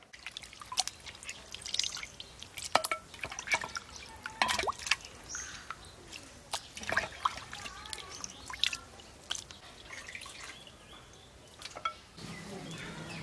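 Water splashing and dripping in irregular strokes as raw beef pieces are washed by hand in a steel bowl of water.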